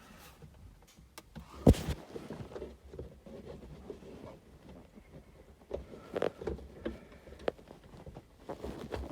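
Handling noises from work on car interior trim: scattered clicks and light knocks, with one sharp knock about two seconds in.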